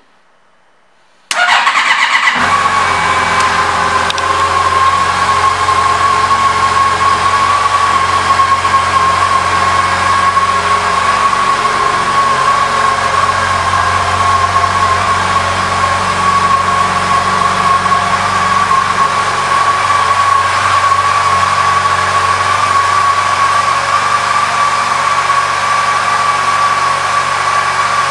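2015 Yamaha FJR1300A's inline-four engine starting about a second in, then idling steadily.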